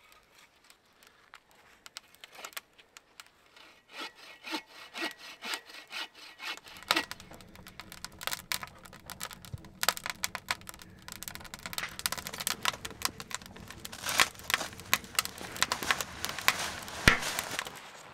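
Split firewood burning in a small tent wood stove, crackling and popping: sparse sharp snaps at first, then thicker crackling over a steady rushing draft from about seven seconds in.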